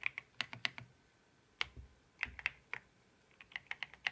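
Typing on a Royal Kludge keyboard: quick runs of sharp key clicks, broken by a pause of about a second near the start, a single keystroke, and then further runs.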